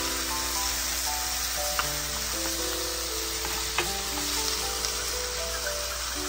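Chicken pieces sizzling steadily as they stir-fry in a nonstick frying pan and are stirred with a spatula, with a couple of light clicks from the utensil. Light background music plays over it.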